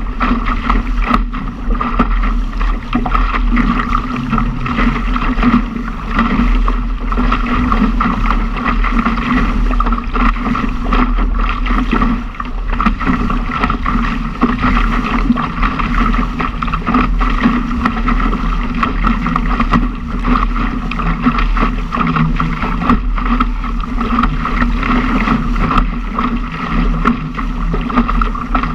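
Water rushing and splashing along the hull of a Laser dinghy sailing fast in strong wind, mixed with wind buffeting the microphone. A steady, loud rushing with a deep rumble.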